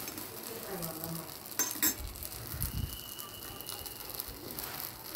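Dosa batter sizzling as it fries on a hot tawa, with two quick clicks about a second and a half in.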